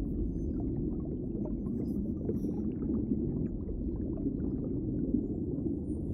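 Tasmanian devil giving a steady low, rumbling growl with its jaws gaping.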